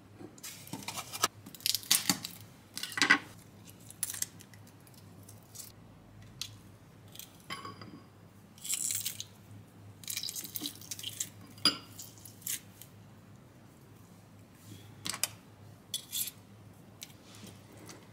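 A metal spoon scooping thick yogurt into a ceramic bowl, with clinks and soft wet scrapes, loudest in the first few seconds. About halfway through, a garlic clove is squeezed through a hand garlic press over the bowl, and near the end the spoon stirs the yogurt.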